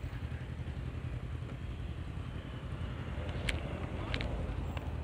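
Steady low rumble of a motor vehicle's engine and road noise, with a few short sharp clicks about three and a half and four seconds in.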